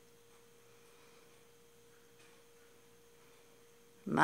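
Faint, steady single-pitch hum, one unchanging tone over quiet room tone; a woman's voice starts right at the end.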